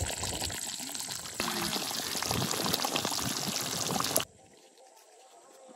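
Chicken gravy simmering and bubbling in an iron kadai over a wood fire, a steady crackling bubble. It gets louder about a second and a half in and stops abruptly about four seconds in.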